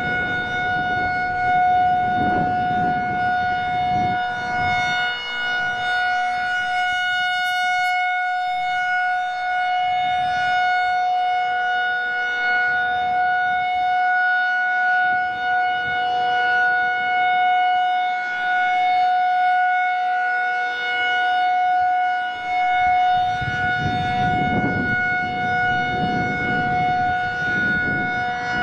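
Federal Signal 2001-SRN outdoor warning siren sounding a steady, single held tone. Wind rumbles on the microphone in gusts near the start and again near the end.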